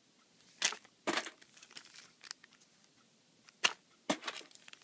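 Small clear plastic bags crinkling in a series of short bursts as bagged keychains are handled and shuffled, with a sharp click about three and a half seconds in.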